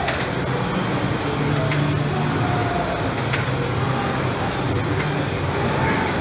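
Air rowing machine's fan flywheel whirring as it is pulled through steady strokes, the low hum swelling and easing with each stroke, over gym background noise and faint voices.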